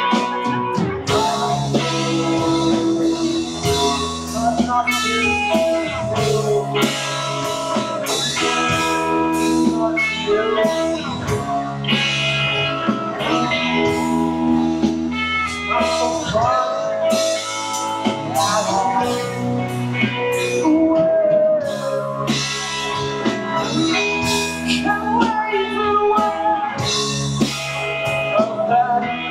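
A live rock band playing a song: two electric guitars, an electric bass and a drum kit keeping a steady beat, with a lead vocal over them.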